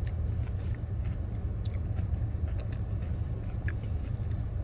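A person chewing food, with a few faint mouth clicks, over a steady low hum in a car's cabin.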